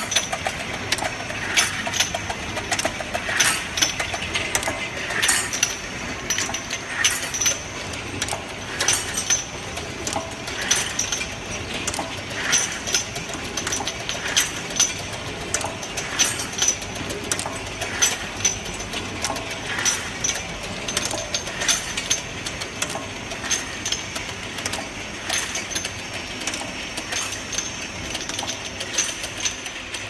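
Automatic syrup bottle washing, filling and sealing machine running: a constant mechanical clatter of clicks and clacks, with a louder clack repeating about every two seconds as the machine cycles, over a steady high whine.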